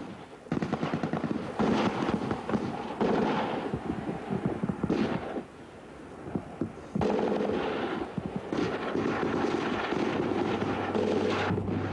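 Automatic gunfire: rapid, dense strings of shots that ease off briefly about halfway through and then pick up again.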